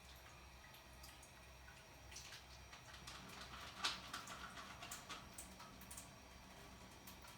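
Faint, scattered clicks and light water sounds over quiet room tone, as more water is added to a clumping yeast mixture and it is worked together.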